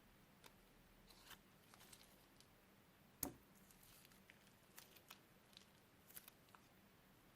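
Quiet handling noises: scattered faint clicks and crinkles, like small objects or plastic being handled, with one sharper click about three seconds in.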